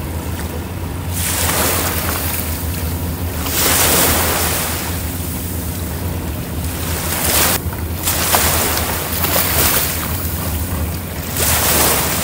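A boat's engine runs with a steady low hum under a rush of wind and water. Gusts of wind buffet the microphone every few seconds.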